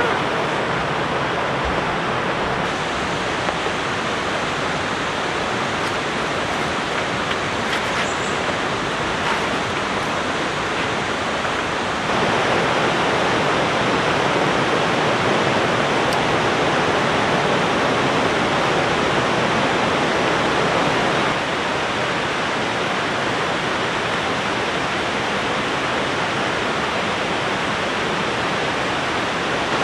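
River water rushing steadily, a constant loud hiss of flowing water. It steps louder about twelve seconds in and drops back about nine seconds later.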